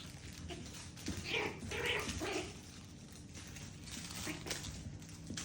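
Pomeranian dog vocalising: a cluster of three or four short sounds about a second in, with fainter ones later.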